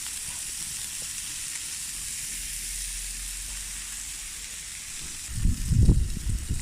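Lamb kebabs sizzling on a barbecue grill: a steady, even hiss of fat and juices cooking. About five seconds in, a loud, irregular low rumbling comes in over it.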